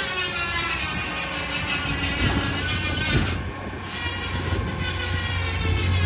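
Truck-mounted crane at work, its engine running under a steady high hydraulic whine; the engine note grows stronger about two seconds in.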